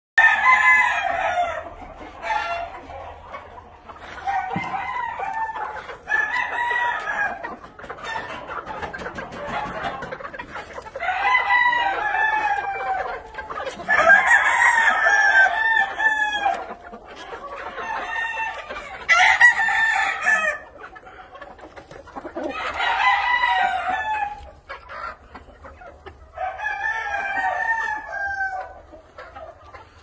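Blue Old English Game roosters crowing again and again, a dozen or so crows one after another, some overlapping, with hens clucking between them.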